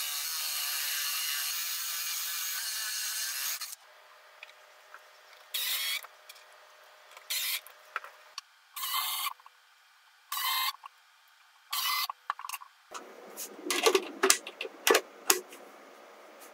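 A cordless drill boring a concealed-hinge cup hole into a hardwood door frame with a bore bit, running steadily for about three and a half seconds and then stopping. After it come short separate mechanical clicks and scrapes every second or two, and a quick run of sharp clicks near the end.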